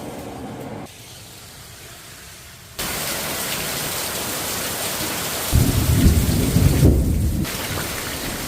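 Heavy rain hissing steadily, starting abruptly about three seconds in. A loud low rumble sits under it for about two seconds in the middle.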